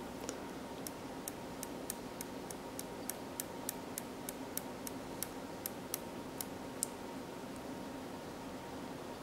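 A run of light, sharp clicks, about three a second, as a plastic spudger tip presses on a small part of an iPhone 7 flex cable. They stop about two seconds before the end, over a steady low hum.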